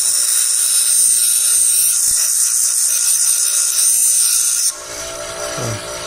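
Bench grinder's stone wheel grinding the edge of a galvanized steel strip, a loud high hiss, deburring the sharp edges around punched holes. The grinding stops suddenly about three quarters of the way through, leaving the grinder's motor running with a steady hum.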